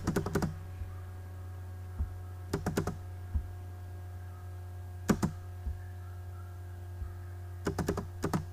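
Computer keyboard keystrokes in four quick bursts of a few keys each: near the start, about two and a half seconds in, about five seconds in, and near the end. Spaces are being typed between binary digits. A steady low hum runs underneath.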